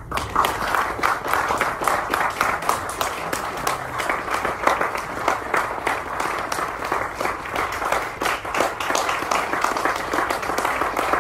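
Audience applauding, many hands clapping; it breaks out suddenly and keeps up steadily.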